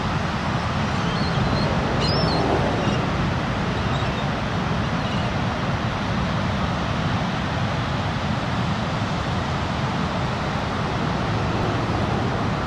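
Steady rush of ocean surf and wind buffeting the microphone on a beach, with a few faint high bird calls in the first few seconds.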